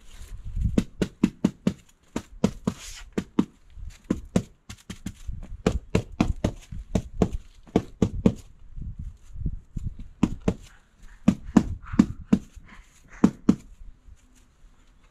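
A rapid, irregular run of knocks and thuds, two to four a second, with a short pause partway through, stopping a little before the end.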